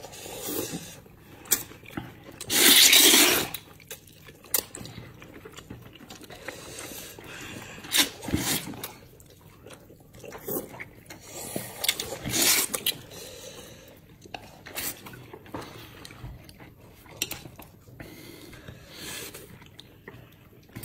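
Slurping plain wheat noodles (Xinjiang banmian) off chopsticks: a series of wet sucking slurps, the longest and loudest lasting about a second, starting about two and a half seconds in.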